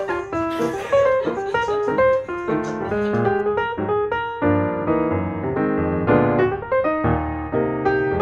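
Piano music: a quick, flowing run of single notes over chords, growing fuller with lower chords from about halfway through.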